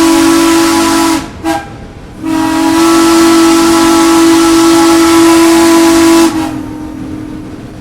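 Steam locomotive whistle sounding a chord over a hiss of steam. A long blast ends about a second in, a short toot follows, and then a second long blast lasts about four seconds before it cuts off and fades.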